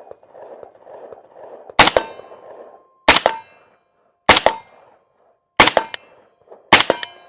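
Five suppressed rifle shots from a 7.62×39 AMD-65 fitted with a Dead Air Wolverine suppressor, about one every 1.2 seconds. Each shot is followed a split second later by the clang of the bullet striking a steel target, which rings on briefly.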